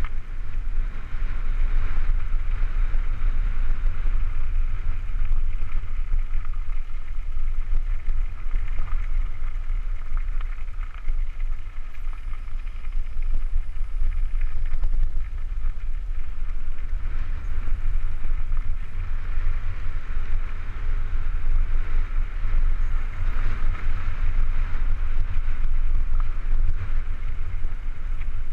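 Wind buffeting the camera microphone as a Cannondale Super V900 mountain bike descends a gravel trail at speed, with a steady low rumble and the hiss and rattle of tyres rolling over loose gravel that swells and fades.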